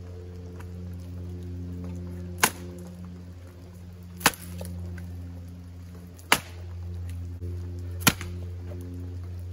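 Axe splitting firewood on a chopping block: four sharp strikes about two seconds apart. Soft background music with a low steady drone runs underneath.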